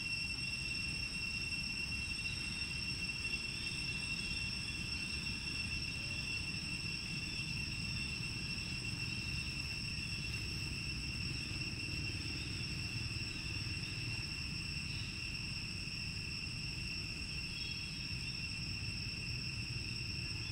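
Steady high-pitched insect drone, a constant two-note whine that does not change, over a low rumble of background noise.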